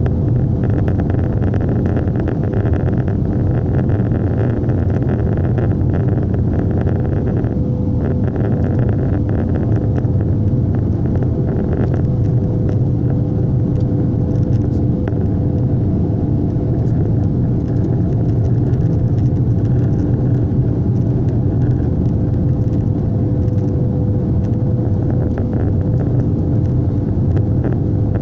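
Airliner cabin noise on final approach: the jet engines and the air rushing past the fuselage make a loud, steady drone with a steady hum running through it.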